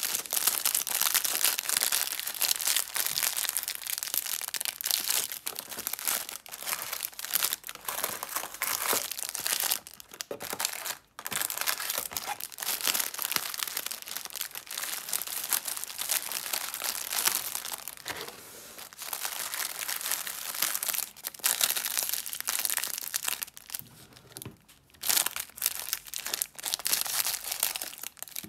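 Crinkly plastic snack wrappers of individually wrapped soft cakes being handled, squeezed and bunched together in the hands: a near-continuous crackling with a few short pauses.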